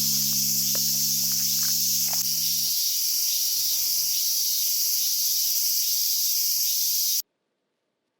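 A dense, steady chorus of insects chirping, with a low steady hum that stops about three seconds in. Everything cuts off abruptly about seven seconds in.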